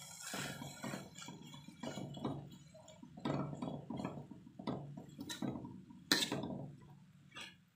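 Metal spoon scraping and clinking against an aluminium wok while stirring and tossing cooked fern leaves, in irregular strokes with a sharp clink about six seconds in.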